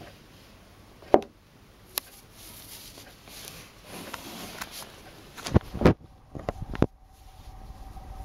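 Handling and movement noises: soft rustling of fabric and the handheld camera, a sharp knock about a second in, a click shortly after, and a cluster of dull thumps in the second half as the legs and feet shift.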